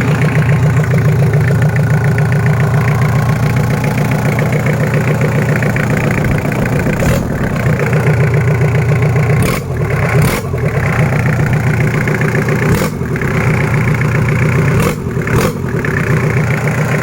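Toyota 2L four-cylinder diesel engine running steadily, with a few sharp clicks and brief dips in the sound in the second half.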